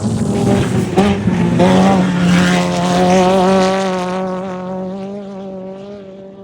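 Off-road race vehicle driving past at speed. Its engine note climbs and then holds steady over a rush of tyre and dirt noise, then fades as it moves away.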